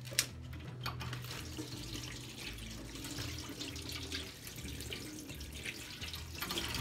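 Tap water running steadily into a kitchen sink as a pineapple is rinsed under it, with a sharp knock about a quarter second in.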